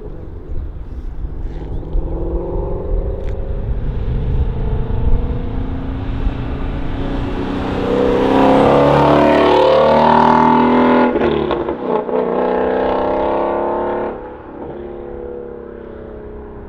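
Ford Shelby GT350's 5.2-litre flat-plane-crank V8 running through a Corsa X-pipe resonator delete as the car drives by. The exhaust grows louder and climbs in pitch, is loudest around the middle as the car accelerates past, then falls off sharply near the end.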